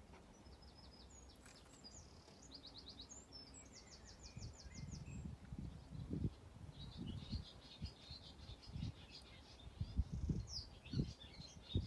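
Small songbirds singing: several quick, even trills and scattered chirps. Irregular low rumbles join in from about four seconds in.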